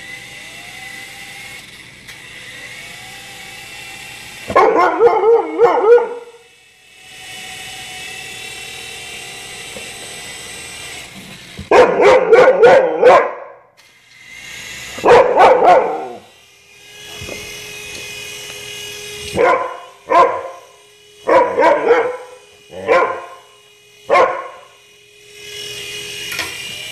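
Siberian husky barking in several loud bouts, the later ones short single barks. Between the barks runs the steady high whine of a small remote-control toy helicopter's electric motors and rotors.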